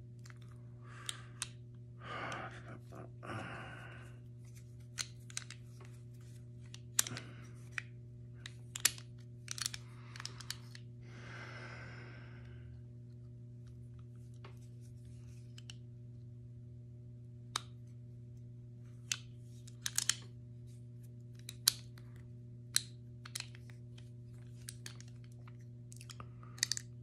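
Small steel pistol parts clicking and tapping at irregular intervals as the hammer strut of a Colt Pre-Woodsman is worked onto the mainspring, with a few brief scrapes. A steady low hum runs underneath.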